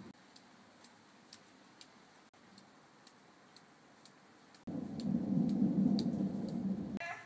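Thunder rumbling low and loud from about two-thirds of the way in, starting and stopping abruptly. Before it, faint regular ticking about twice a second.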